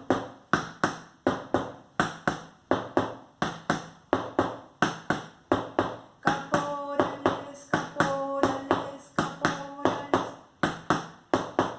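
A cardboard box and an old book struck in a steady drum-like rhythm, about two to three hits a second, standing in for a bass drum and snare.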